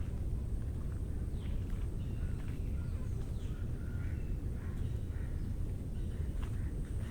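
Scattered short bird calls and chirps, faint, over a steady low rumble.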